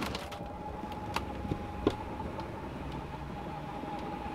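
RV slide-out's electric motor running on shore power with a steady whine as the slide room moves out, with a couple of knocks and clicks from the mechanism about a second and two seconds in.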